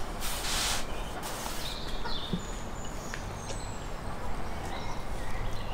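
Light clinks and knocks of metal skewers and forks on plates, with a short scrape about half a second in. Birds chirp faintly in the background.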